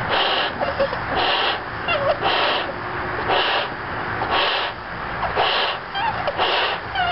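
A 16-inch Qualatex latex balloon being blown up by mouth: a sharp breath drawn in about once a second between breaths blown into the balloon, with a few faint squeaks.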